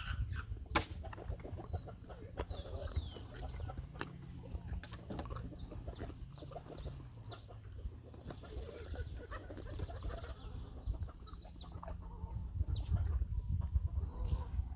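A donkey chewing mango close by, a steady low crunching and rustling, while birds chirp throughout with many short, falling calls.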